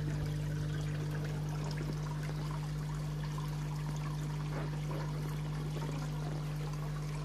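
Water pouring and splashing steadily into a raised garden koi pond, with a steady low hum underneath.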